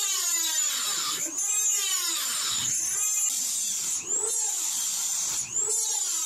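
High-speed rotary tool with a cut-off wheel cutting through a bolt on a rusty steel lawn cart, sparks flying. It makes a high steady whine whose pitch sags and recovers about every second and a half as the wheel bites into the metal. The bolt is being cut off because it would not come undone.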